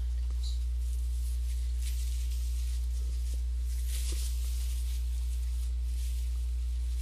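A steady low electrical hum runs underneath throughout. Over it, a paper napkin rustles softly as it wipes at ketchup spilled on trousers, with the rustles strongest about two and four seconds in.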